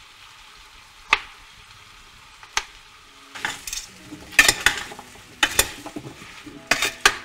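Raw chunks of swede, carrot and potato stirred with a spoon in a large stainless-steel pot, scraping and knocking against the metal, over a faint sizzle of butter. Two single clicks come first, and the stirring starts about three and a half seconds in.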